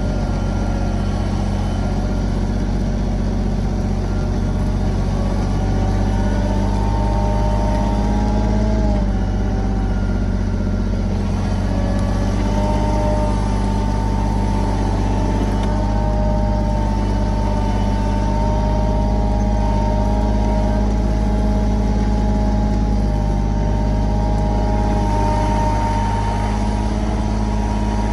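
Kioti compact tractor's diesel engine running steadily under load while pulling a plow through the soil, with a higher whine over the engine hum that shifts slightly in pitch a few times.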